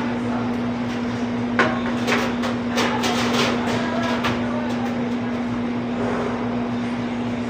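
Workplace machine noise: a steady hum with one even tone, a sharp clank about a second and a half in, and faint voices.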